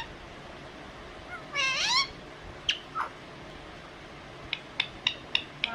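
Pet parrot calling once about a second and a half in, a short call whose pitch rises and falls, with a couple of brief chirps after it. Near the end comes a quick run of short sharp clicks, about three a second.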